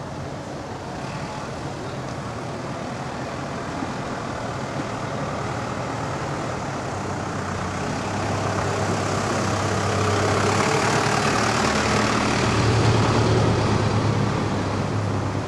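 A heavy vehicle's engine, running with a steady low hum that grows louder from about halfway through and eases off again near the end.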